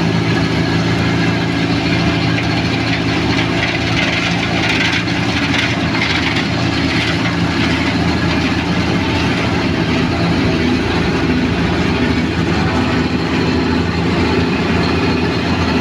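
Cold milling machine's heavy diesel engine running steadily, with a harsher rasping noise swelling from about four to seven seconds in.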